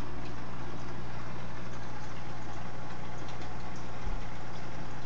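Aquarium air pump humming steadily as it drives a sponge filter, with faint bubbling above the hum. A soft low bump about four seconds in.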